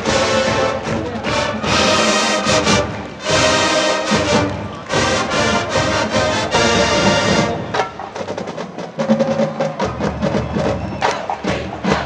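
Marching band playing live: brass and drums playing loud held chords together, then about two-thirds of the way through the drums take over with quick, rhythmic strokes.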